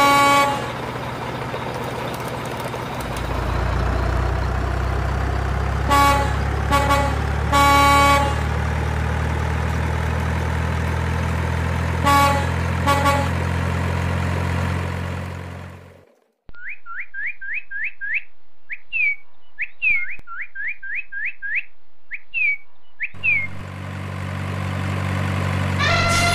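Truck engine running steadily, sounded over toy trucks, with short horn toots at the start, three around six to eight seconds in and two around twelve seconds in. About sixteen seconds in the engine cuts out and a run of quick rising chirps, about two a second, follows for some six seconds before the engine comes back.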